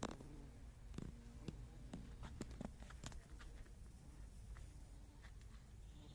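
Faint, scattered clicks and rustles, about a dozen spread irregularly, over a steady low rumble.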